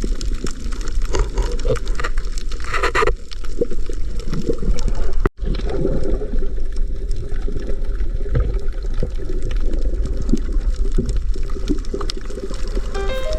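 Water sloshing and gurgling close to the microphone, as from a snorkeler's camera at or under the surface. It is steady and noisy, with a brief dropout about five seconds in.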